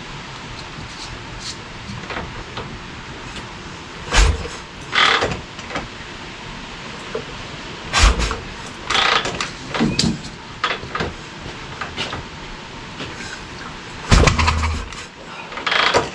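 Harley-Davidson shovelhead 97-inch stroker being kick-started: three heavy kicks, each a sharp low thump, about four to six seconds apart. There are shorter bursts of noise between them, and the hard-kicking big-stroke engine does not catch.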